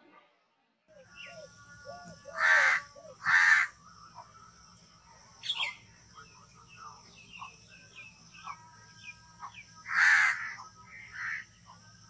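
House crow cawing: two loud harsh caws in quick succession a few seconds in, fainter calls in between, and another loud caw near the end. Faint small-bird chirps and a steady high hiss sit underneath.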